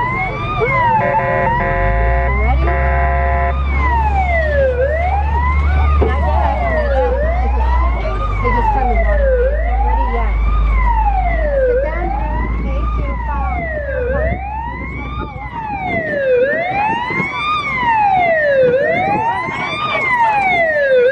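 Electronic siren on a ride fire engine: a few short stepped horn-like tones, then a wail rising and falling about every two seconds. A low motor rumble from the moving vehicle lies under it for the first part.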